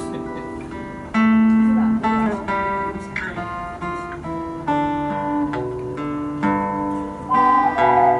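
Acoustic guitar playing chords, with a new chord about every second. Near the end a held, wavering higher melody note joins in.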